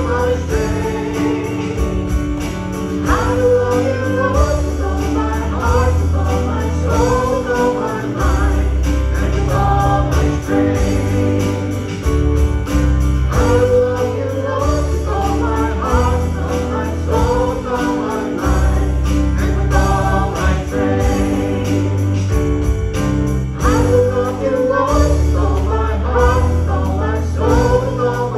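Worship band music with a sustained bass line and a steady beat of jingling percussion, with voices singing a melody over it.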